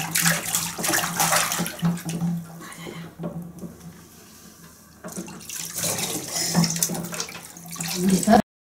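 Bathwater splashing and sloshing in a tub as hands slap and move through it, quieter for a couple of seconds in the middle, then cutting off suddenly near the end.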